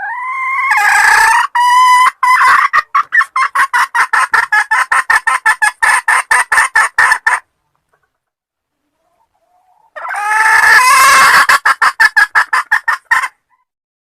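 Hen cackling in two bouts. Each opens with a rising call and breaks into fast repeated clucks, about five a second. The first bout lasts about seven seconds, and the second starts about ten seconds in.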